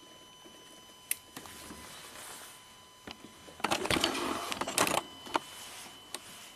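Handling noises in the engine bay with the engine off: a sharp click about a second in, then about a second of clattering and rustling in the middle, followed by a couple more single clicks.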